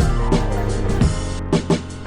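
Background music with a drum beat and a bass line, with a falling sweep in pitch at the very start.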